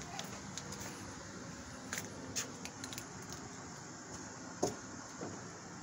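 Steady outdoor background noise with a faint hum, and a few short clicks and taps scattered through it.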